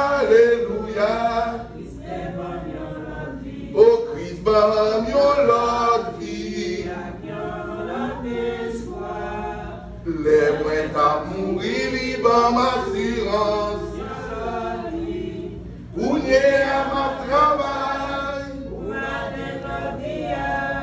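A church congregation singing a hymn together, unaccompanied, in sung phrases of a few seconds with short breaths between them.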